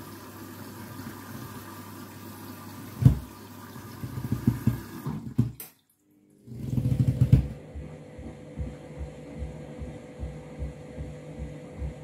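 Front-loading washing machine on a rinse cycle, its turning drum sloshing water and thick washing-up-liquid suds, with a few heavier splashes and thumps. The sound cuts out for a moment near the middle, then returns with a steady hum under the rhythmic sloshing.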